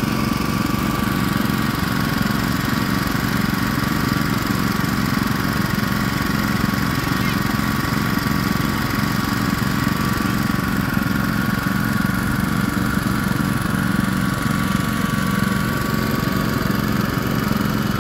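Honda portable gasoline water pumps running steadily at a constant speed, a continuous engine hum with a steady whine, as they pump water out of the muddy pond.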